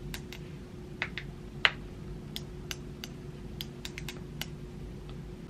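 About a dozen light, irregular clicks, with one louder snap about one and a half seconds in, over a steady low hum.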